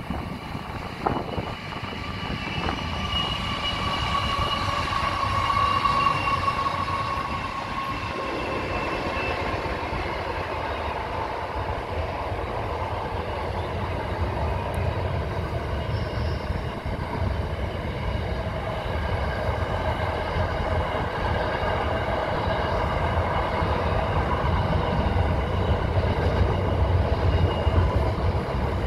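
Container freight train rolling across a steel girder railway bridge: a heavy, steady rumble and clatter of the wagons on the rails. A high steady whine sounds over it for the first several seconds and fades out by about ten seconds in.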